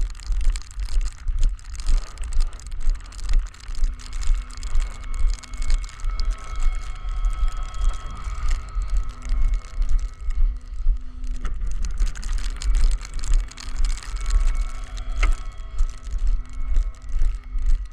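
Footsteps through deep snow, about two a second, over a steady running engine.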